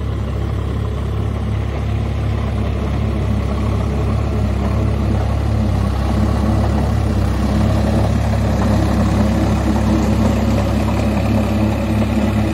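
Sonalika tractor's diesel engine running steadily under load, driving a Shaktiman rotavator through wet mud. It is a continuous low drone that grows slightly louder midway.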